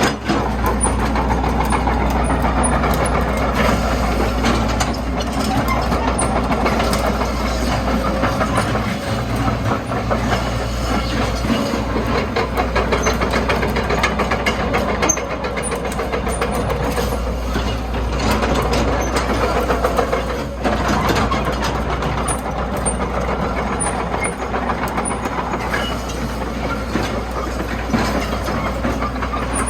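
Komatsu PC130-6E excavator's S4D102E four-cylinder diesel engine running steadily with a low hum, along with frequent small knocks and rattles.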